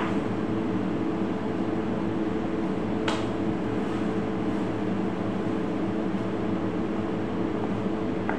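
Steady mechanical hum of a kitchen's ventilation, with one sharp tap about three seconds in.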